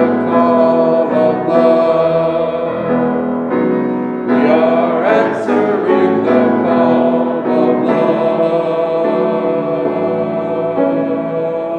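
A congregation singing a hymn together, accompanied by a grand piano.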